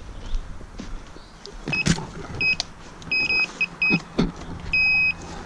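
Garrett AT Pro International metal detector sounding five high beeps of one pitch, two of them held a little longer, as the coil passes back and forth over a target that the detectorist takes for a coin. A few sharp knocks sound between the beeps.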